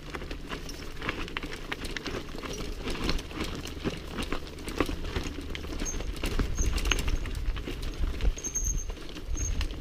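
Mountain bike descending fast over a loose, stony trail: tyres crunching over rocks, with a dense clatter of clicks and rattles from the bike. A low rumble grows stronger in the second half.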